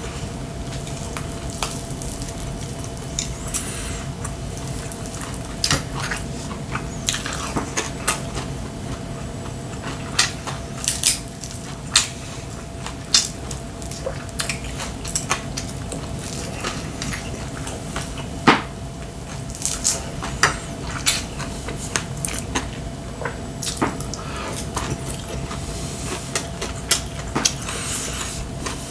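Wooden chopsticks clicking and scraping against ceramic plates and bowls, with wet chewing sounds of someone eating. A faint steady hum runs underneath.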